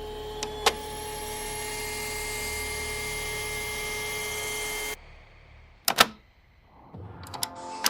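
Gadget sound effects: a steady electric hum with a thin held tone lasts about five seconds and cuts off suddenly. It is followed by a sharp mechanical click, like a camera shutter, and a few lighter clicks near the end.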